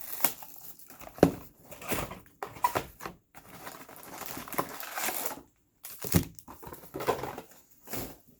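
Plastic wrapping of a trading-card box and its packs crinkling and tearing as it is opened by hand, irregular crackling with several sharp snaps.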